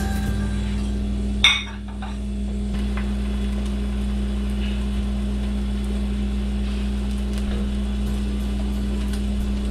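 A cooking utensil clinks once against the pan about a second and a half in, ringing briefly, over a steady low hum.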